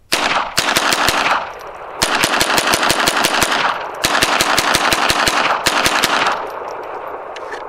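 Smith & Wesson semi-automatic .22 rifle firing Remington Thunderbolt .22 LR as fast as the trigger is pulled, about six shots a second. The shots come in three or four quick strings with short pauses between them, each crack followed by an echo.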